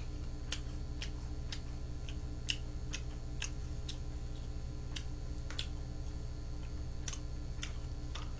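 Someone eating tteokbokki with chopsticks: small sharp clicks at uneven intervals, about one or two a second, over a steady low hum.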